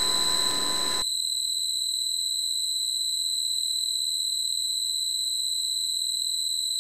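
A steady, high-pitched electronic tone held unchanged. The background noise beneath it cuts out about a second in, leaving the tone alone.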